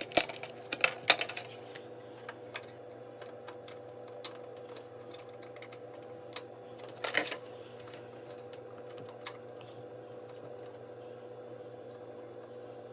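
Small clicks and clatter of hands handling computer parts, busiest in the first second or two, with a louder clatter about seven seconds in, over a steady low electrical hum.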